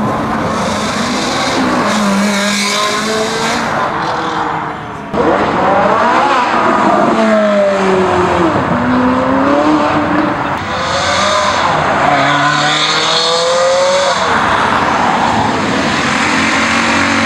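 Performance car engines revving hard and accelerating away, the pitch climbing and dropping back several times as they rev and shift. The sound jumps abruptly about five seconds in.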